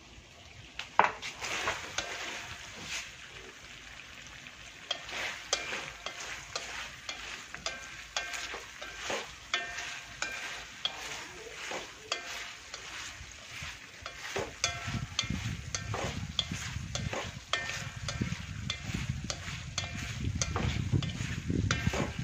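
Quail eggs sizzling in satay sauce in a steel wok while wooden chopsticks stir them, with many sharp clicks and scrapes of the chopsticks on the wok. A low rumble joins about two-thirds of the way through.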